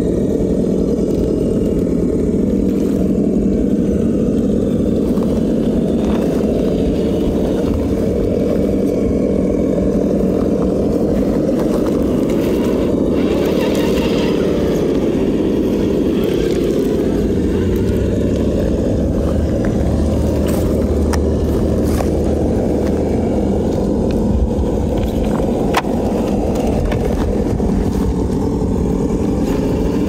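Traxxas TRX-4 scale RC crawler's electric motor and gearbox running with a steady whine as it crawls over rocks and gravel. The pitch dips and rises briefly about halfway through.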